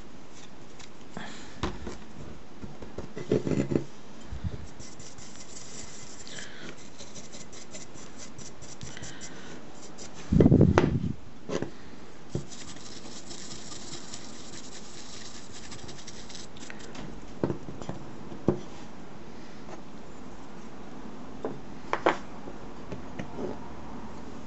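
Paintbrush bristles scrubbing in quick, rasping strokes during dry-brushing of a small model terrain wall, in two spells of scratchy brushing. Scattered knocks and taps of the pieces being handled, the loudest a dull thump about ten seconds in.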